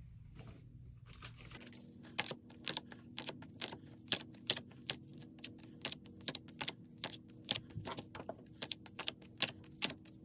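Rapid, irregular light clicks and taps of small cards being flipped through and handled, starting about a second and a half in.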